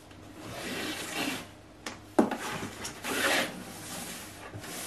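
Ribbon being pulled and slid off a cardboard gift box, a rubbing, rasping rustle in two stretches, with a sharp knock a little over two seconds in as the box is handled.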